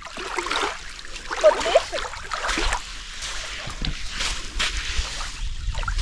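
Water sloshing and splashing at the bank as a hooked bream is drawn in through thick weed, in irregular, uneven bursts.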